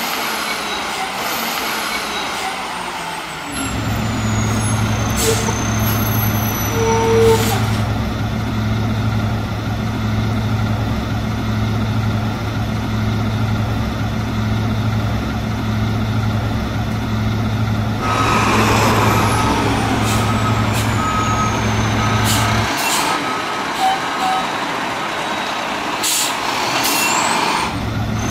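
Garbage truck sounds: a diesel engine starts a few seconds in and runs with a steady low hum, broken by several short, sharp air-brake hisses. Partway through, a run of reversing beeps sounds for a few seconds; the engine drops out and comes back near the end.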